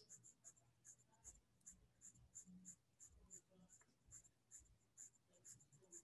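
Faint scratching of a colored pencil on paper in short repeated strokes, about three a second.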